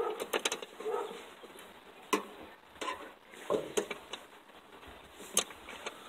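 Irregular sharp metal clicks and taps, roughly one a second, of a ratcheting open-end wrench working a stubborn flare nut on a clutch master cylinder line.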